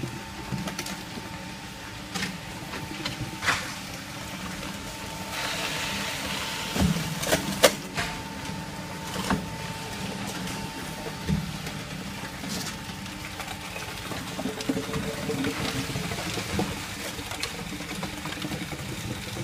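Concrete-making machinery running steadily, with a faint whine over a low rumble and scattered knocks and clatter, a small cluster of them a little past the middle. The whine fades out about two-thirds of the way through.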